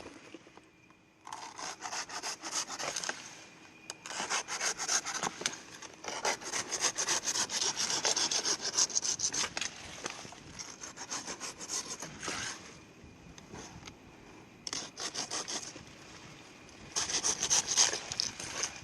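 Hand pruning saw cutting through palm fronds in several bouts of rapid back-and-forth strokes, with short pauses between bouts.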